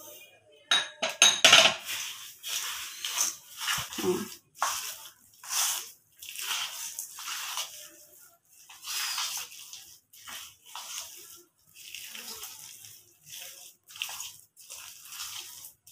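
Sugar tipped from a small glass bowl into a steel bowl, with a few clinks about a second in, then a hand mixing damp palm-pulp dough in the steel bowl: repeated wet squishing and rubbing strokes.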